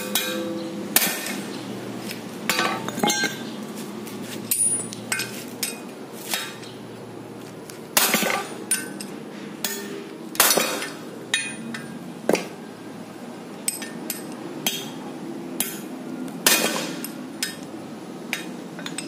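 Hammer blows on a steel socket set against the old front wheel bearing in a Proton Saga FLX steering knuckle, driving the bearing out. Sharp metallic strikes come roughly once a second at an uneven pace, each with a short ring.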